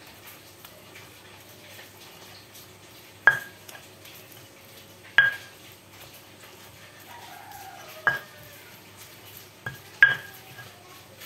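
Stone pestle mashing fried tempe in a stone mortar (cobek and ulekan): soft crushing with four sharp, ringing knocks of stone on stone a few seconds apart, and a lighter tap just before the last.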